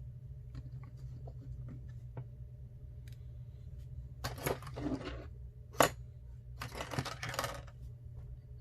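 Small clicks and taps of a precision screwdriver and tiny screws being handled while the last two screws go into an iPhone 6 Plus. There are two short scraping rustles in the second half and one sharp tap, the loudest sound, just before six seconds, over a steady low hum.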